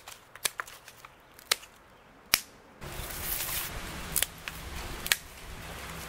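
Hand pruning shears snipping thin pine sticks: a handful of separate sharp snips, the loudest a little past two seconds in. From about three seconds in, a steady hiss with a low rumble runs beneath the snips.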